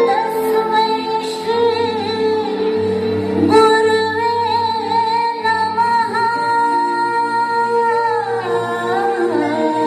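Dance music: a woman singing a slow melody with long held, wavering notes over a steady drone.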